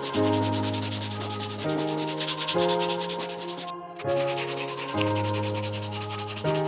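Background music: sustained synth chords that change about once a second over a fast, even ticking beat, with a brief break a little before the middle.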